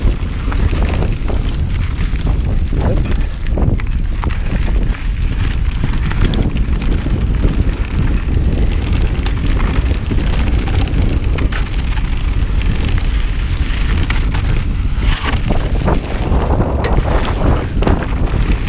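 Wind buffeting the microphone over the rumble of a mountain bike's tyres rolling fast along a dry, rocky dirt trail, with frequent short clicks and rattles from the bike over the bumps and stones.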